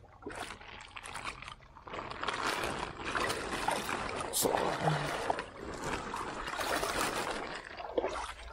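A wet plastic bag being crumpled and handled, crinkling and rustling, with water splashing. It grows louder about two seconds in and eases near the end.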